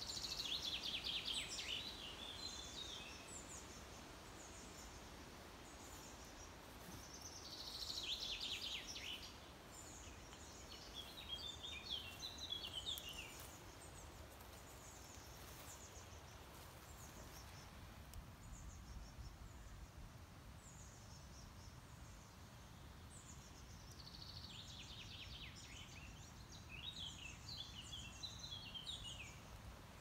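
A songbird singing short phrases of quick, falling notes, several times with pauses of a few seconds between them, over a faint low rumble.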